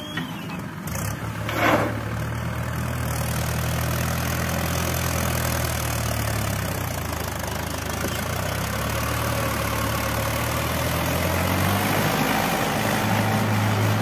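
Mahindra 475 DI tractor's four-cylinder diesel engine running steadily as it pulls away with a loaded trolley, its note shifting near the end. A short loud knock comes about two seconds in.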